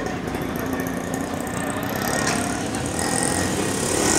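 Street traffic noise, vehicles running on the road, with a sharp click about two seconds in and a hiss growing louder near the end.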